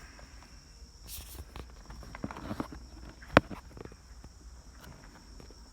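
Scattered knocks, clicks and rustles of a plastic overhead light console being handled and held up to the roof, with one sharp click a little over three seconds in. A steady high chirring of crickets runs underneath.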